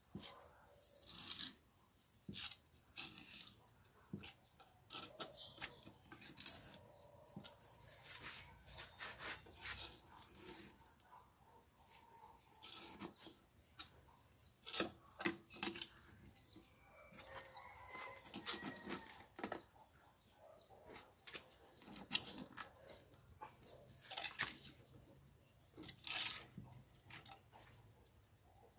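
Hand tool and fingers scraping and digging through potting soil around a desert rose's roots in a terracotta bonsai pot: a string of short, irregular crunching scrapes. The soil is being loosened so that the plant can be lifted higher in its pot.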